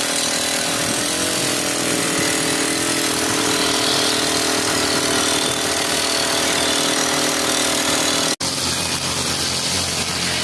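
Two-stroke brush cutter (grass-cutting machine) running at high speed, its pitch wavering between about one and three seconds in. It cuts out for an instant near the end and picks up again at a lower pitch.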